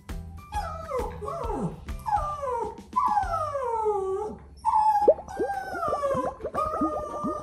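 Bichon frise whining and howling at a closed kitchen door it cannot open: a run of long falling whines, then a quick string of short whimpers over the last couple of seconds.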